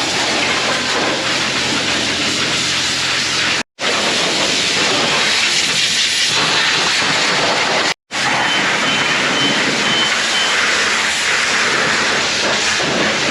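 Car-wash pressure wand spraying a motorcycle, a loud steady hiss of water jet and spray, in three stretches broken by two short cuts.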